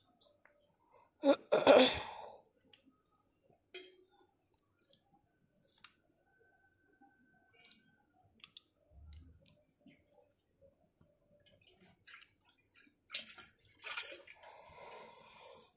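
Small clicks and light crunches of freshwater pond snail shells knocking together as they are picked up by hand and dropped into a steel bowl. A loud short double burst comes about a second and a half in, and a cluster of clicks with rustling comes near the end.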